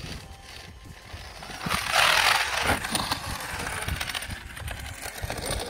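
Traxxas X-Maxx RC monster truck driving on the grass under an 8S motor, its drivetrain running on damaged diff crown and pinion gears. The sound swells as it comes close, loudest for about a second from around two seconds in, then runs on lower.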